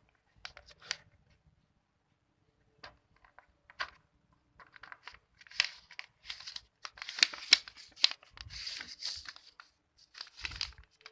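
A sheet of paper being folded and creased by hand into a paper aeroplane: scattered crinkles and rustles, sparse at first and busier from about halfway through.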